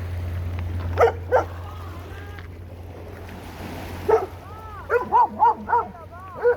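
A dog barking during play: two sharp barks about a second in, then after a pause a quick run of about five higher, rise-and-fall yelping barks near the end.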